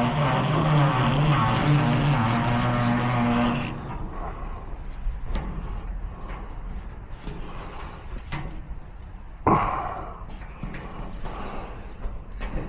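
A motor runs steadily and stops abruptly about four seconds in. After that come small scattered clicks and knocks, with one sharper knock about nine and a half seconds in.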